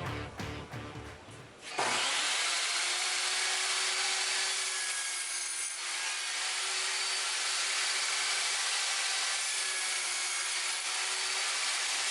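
Lotus LTST1800X table saw running and cutting through wood, with a loud, steady blade hiss over a constant hum. It cuts in abruptly about two seconds in, and there is a brief dip partway through.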